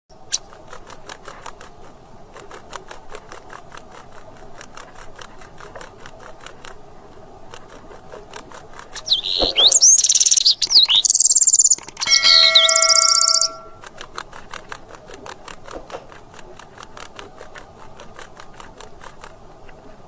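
A small songbird, a wren, sings one loud burst of song about nine seconds in: rising and falling high whistles, then fast, very high trills, lasting about four seconds. A faint, regular ticking, about five a second, runs before and after the song, and a steady lower tone sounds along with the last trill.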